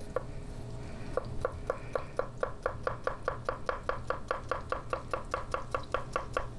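Chef's knife rapidly mincing garlic on a wooden butcher-block cutting board: quick, even knocks of the blade on the wood, about five a second, after a short pause about a second in.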